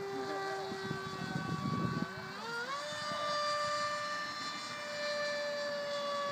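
Electric motor and propeller of a HobbyKing Darkwing flying-wing RC plane flying overhead: a steady whine that rises in pitch about two and a half seconds in, then holds at the higher note. A short rush of rustling noise comes just before the rise.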